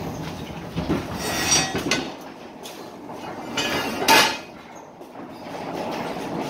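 Manual pallet jack rolling a loaded pallet along a truck trailer floor, its wheels rattling and clattering, with a sharp metallic clank about a second and a half in and a louder one at about four seconds.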